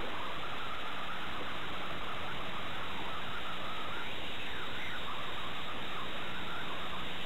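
Steady hiss at an even level, with faint irregular chirps and trills running through it.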